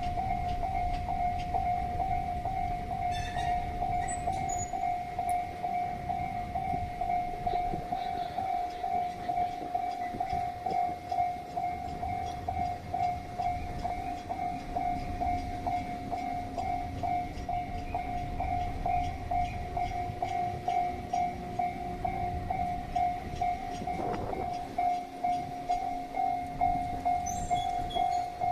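Japanese level-crossing alarm ringing its steady, regularly pulsing electronic bell tone while a freight train runs through the crossing, with a low rumble and a clatter of wheels over the rails.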